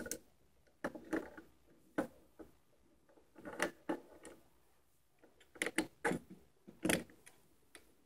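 Clicks and clacks of a replica pistol and its magazine being handled and knocked against a wooden tabletop. They come as irregular single knocks and short quick bunches.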